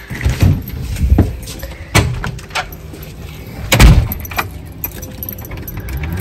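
Knocks and thumps from a handheld phone being carried out of the house, with keys jangling; the loudest thump comes about four seconds in.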